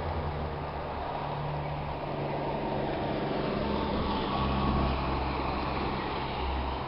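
Road traffic: car engines running low and tyre noise as vehicles pass, swelling slightly about four to five seconds in as one comes closer.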